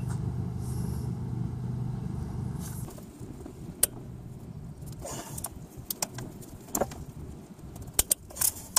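Ratchet wrench loosening the timing belt tensioner bolts on a Honda J32 V6: a steady low mechanical hum for about the first three seconds, then scattered sharp metal clicks and taps.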